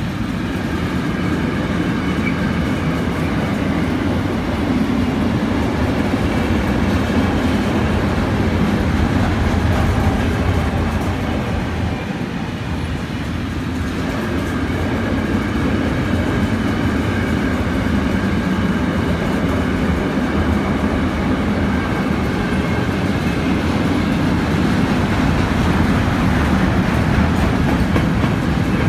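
Freight train of car-carrier wagons loaded with vans rolling past, its wagons and wheels rumbling steadily on the rails, easing slightly about twelve seconds in before building again.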